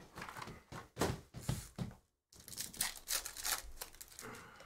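Cardboard trading-card box being handled with a few knocks and scrapes, then a foil trading-card pack torn open, its wrapper crinkling for a second or two near the end.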